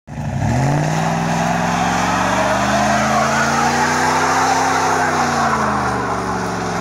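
Ford F-150's 5.4-litre V8 held at high revs during a burnout, the rear tyres spinning and squealing on the asphalt. The engine note climbs quickly at the start, rises slowly to a peak a little past halfway, then drops near the end.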